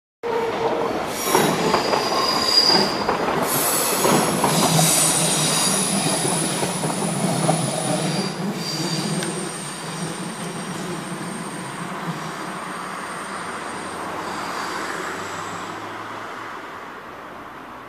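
Stadler GTW railcar running through tight curves, its wheels squealing with high thin tones over the running noise of the train. Loudest in the first few seconds, then fading gradually.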